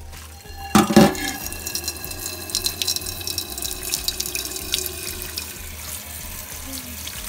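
Water running from a kitchen tap into a sink, starting with a loud splash about a second in and carrying on steadily, with small clinks and knocks over it.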